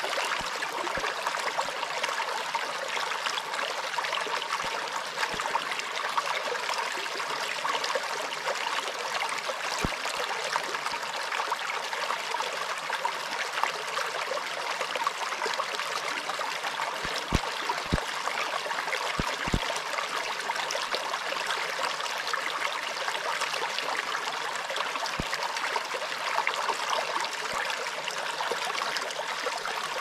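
Small, shallow rocky creek running over stones in a steady trickling babble, with a few faint low knocks here and there.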